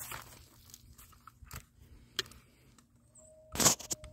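Footsteps crunching on dry leaves, with scattered rustles and clicks, and a brief loud burst of noise about three and a half seconds in.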